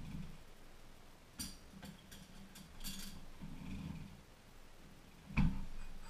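Kitchen clatter: two sharp, ringing clinks like dishes knocking together, then a louder dull thump about five seconds in, over a faint uneven low rumble.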